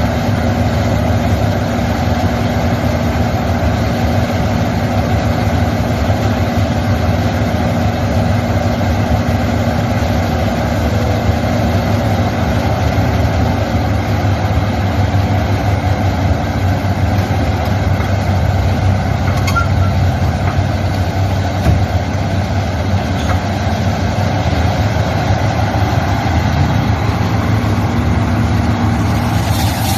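Heavy diesel engine of construction machinery running steadily at a low, even speed.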